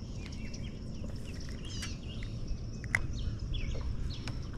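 Several birds chirping and calling in short whistled notes over a steady low rumble, with one sharp click about three seconds in.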